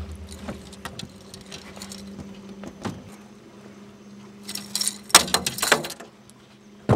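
Handling noise as a hooked peacock bass is held and unhooked in an aluminium boat: scattered clicks and knocks, then a louder flurry of clattering and thrashing about four and a half to six seconds in, a sharp click near the end, all over a steady low hum.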